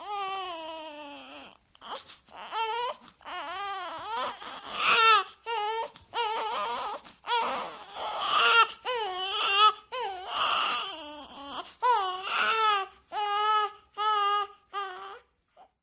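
Baby crying: a run of high-pitched cries, each about a second long with short breaks for breath between them. The first cry is long and falls in pitch, and the crying stops near the end.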